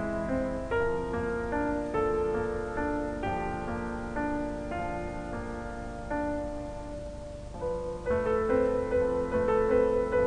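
Background music: a soft piano melody with gently struck, sustained notes.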